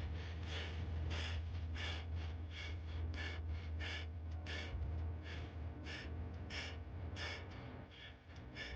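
Hip-hop backing track between rap lines: a steady deep bass under short breathy hits repeating about three times a second. The bass drops out near the end.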